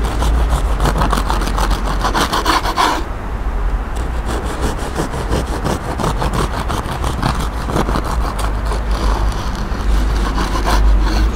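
Serrated bread knife sawing back and forth through a crusty homemade loaf on a wooden board, the crust rasping with each stroke. The strokes ease off briefly about three seconds in, then start again as the next slice is cut.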